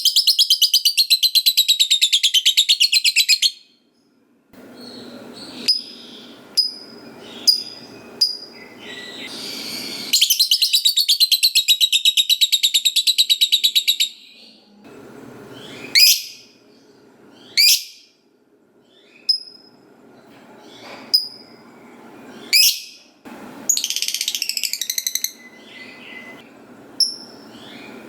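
Lovebird singing in long, rapid chattering trills (the 'ngekek panjang'), two of them lasting about four seconds each, with short sharp chirps in between.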